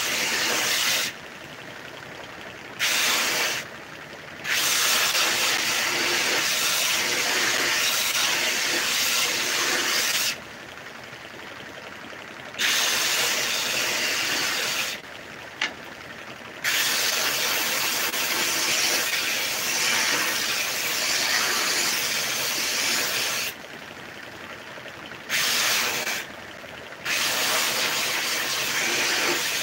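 Homemade belt sander sanding small pieces of wood: a loud, steady hiss of wood on the abrasive belt. Several times it drops away for one to two seconds, leaving the quieter hum of the machine running.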